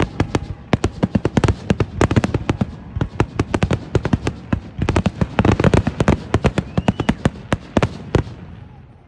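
Aerial fireworks going off in a rapid barrage of bangs and crackling reports, many overlapping each second. The barrage thins out and fades near the end.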